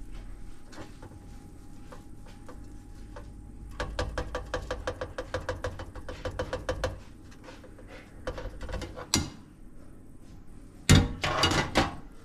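Kitchen work with clicks and knocks: a run of quick, even clicks at about six a second, a couple of sharp knocks, then a loud clatter near the end.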